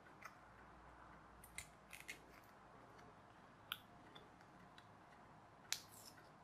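A few faint, sharp clicks and ticks over near silence, the sharpest near the end: small printed-card parts of a toy car kit being handled and pressed together by hand.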